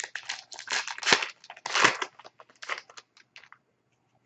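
A 2011-12 Upper Deck SPx hockey card pack wrapper being torn open and crinkled by hand: a run of irregular crackles that thins out and stops about three and a half seconds in.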